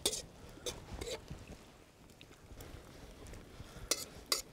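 Spatula scraping and knocking against a steel wok as creamy pasta with sour cream is stirred, a few sharp scrapes about a second in and several more near the end.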